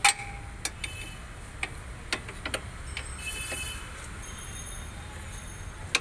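A socket wrench clinking against the steel strut and hub bolts as it is fitted and worked: a handful of sharp, separate metallic clicks that ring briefly, with a short run of rapid ticking about three seconds in.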